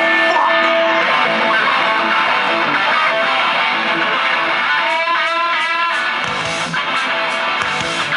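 Rock band playing, with loud electric guitar to the fore. About five seconds in, a high line bends up and down in pitch.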